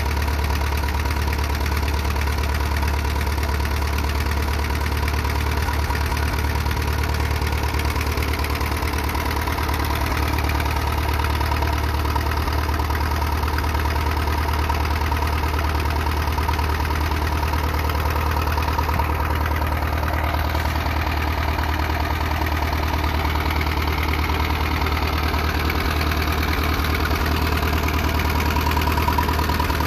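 1940 Allis-Chalmers UC tractor's four-cylinder engine idling steadily, a low, even running note with no change in speed.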